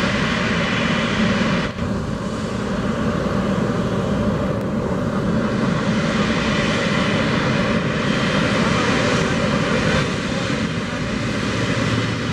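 Boeing 777-200F's GE90 turbofan jet engines running with a loud, steady rush, with a brief dip about two seconds in.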